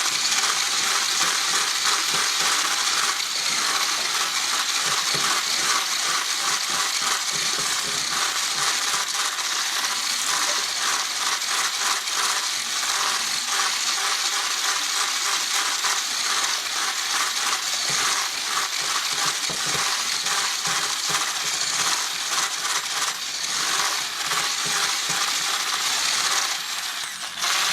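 Electric kitchen blender running continuously, a loud whirring noise with a busy clattering texture of many small hits, cutting off near the end.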